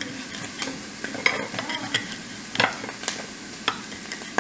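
Kitchen knife slicing through rolled fresh spinach leaves on a ceramic plate: a crisp cut with a short tap of the blade on the plate, repeated roughly twice a second.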